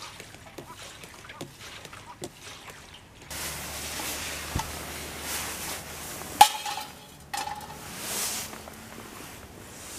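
Light clicks and taps from refuelling a kerosene heater with a siphon pump, then a steady outdoor hiss. About six seconds in, a sharp metal clank with a brief ring as a small frying pan is set down on the heater's steel top plate, followed by a smaller knock.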